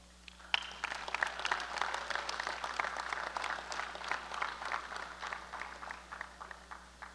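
Crowd clapping for an introduced senior, starting about half a second in and dying away near the end.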